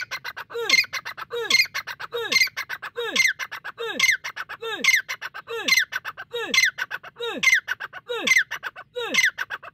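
Grey francolin calling close up: a shrill phrase of rapid clicking notes with a falling note and a squeal, repeated steadily a little faster than once a second.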